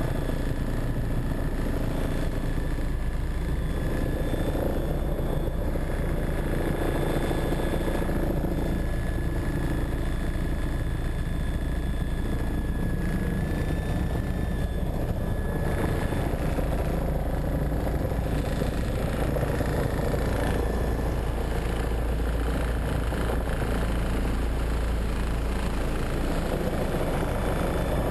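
Engine of a moving vehicle running steadily, a constant low drone with no change in level.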